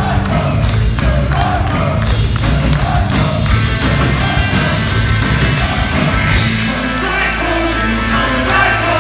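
Live rock band playing loud: electric guitars, bass and drum kit with voices singing. About six seconds in the drum hits stop and the band holds a ringing sustained chord, the close of the song.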